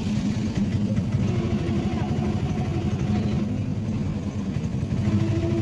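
A tuk tuk (auto-rickshaw) engine running steadily, heard from on board while riding.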